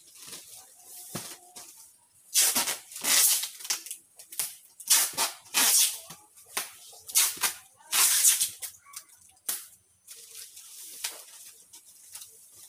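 Plastic-wrapped packs of goods rustling and crinkling as they are handled and stacked, in a run of irregular bursts, busiest from about two seconds in until about eight seconds in, with a few light knocks.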